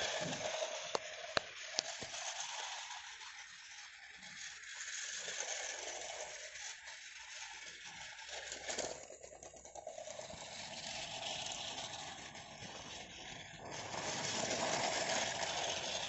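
Toy steam train's small electric motor whirring and its wheels rattling over plastic track, with a few sharp clicks in the first two seconds. The sound swells and fades as the train moves, and is loudest near the end as it runs close by.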